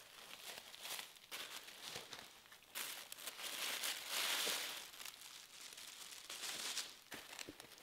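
Tissue paper rustling and crinkling as it is folded back and lifted out of a gift box, in irregular handling noises, loudest around the middle.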